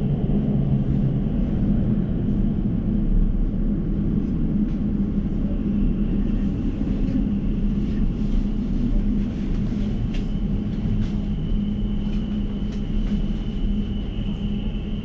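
Steady rumble and hum inside an Elizabeth line Class 345 train at Paddington, with a few faint clicks and a steady high-pitched whine that joins about ten seconds in.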